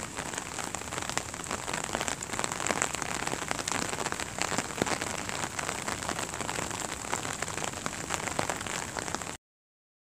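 Steady rain falling on wet paving and tree leaves, a dense patter of drops. It cuts off suddenly about nine seconds in.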